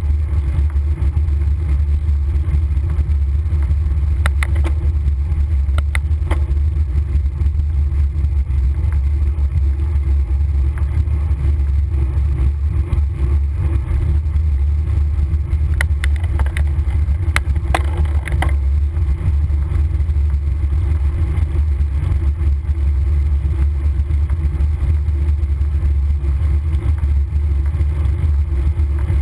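Steady wind rumble buffeting a bicycle-mounted camera's microphone at riding speed. A few sharp clicks come around five seconds in and again around sixteen to eighteen seconds in.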